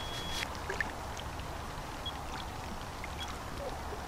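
Soft water sounds from a hooked common carp splashing at the surface as it is played towards the landing net, over a steady low rumble.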